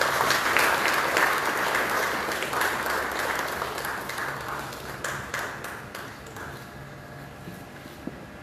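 Audience applauding, loudest in the first few seconds and then thinning out and fading away.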